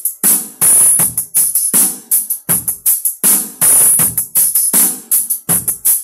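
A DJ dance mix with a fast drum beat and bright tambourine-like jingles, played loud through a pair of stacked Konzert SG series speaker cabinets wired in parallel, heard in the room.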